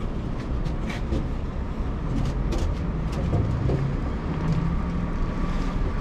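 A tipper trailer's roll-up tarp crank being wound, giving scattered sharp clicks and knocks over a steady low rumble of heavy vehicles and wind on the microphone.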